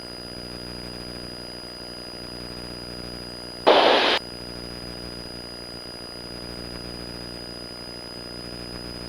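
Cessna 172's piston engine running steadily at full power in the climb-out after a touch-and-go, a constant drone. About four seconds in comes a brief, loud burst of hiss lasting about half a second.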